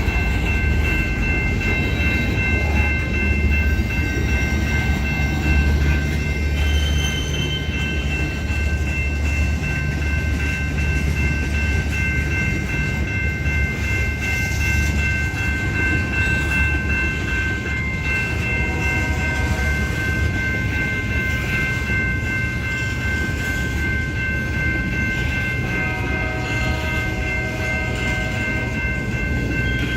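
Union Pacific freight train running, a heavy low rumble that is strongest in the first half, with three steady high-pitched tones ringing over it.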